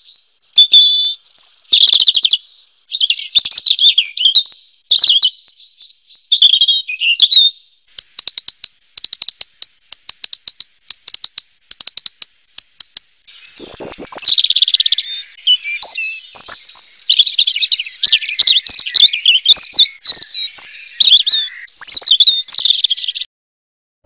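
Red-billed leiothrix (Pekin robin) singing loud, quick warbled phrases. In the middle the song breaks into a rapid series of dry ticks, about five a second, before the warbling resumes.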